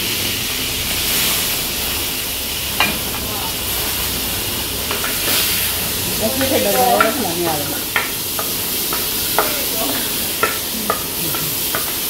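Seafood sizzling as it is stir-fried in a hot wok over a flaming gas burner, with a wooden spoon knocking and scraping against the pan in irregular clicks that come more often in the second half. A short wavering sound rises above the sizzle about six seconds in.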